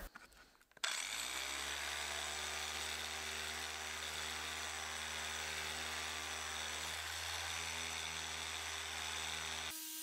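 Festool LS130 linear sander starting up about a second in and running steadily with an even whir, its profiled pad working back and forth along sawtooth grooves in oak at 120 grit. Near the end the sound drops abruptly to a quieter, thinner steady hum.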